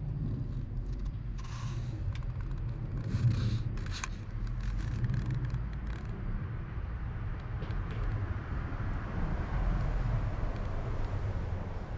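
Wood pellets burning in a homemade paint-can wood gas stove: a low steady rumble, a run of crackles and pops in the first half, and a soft hiss later on.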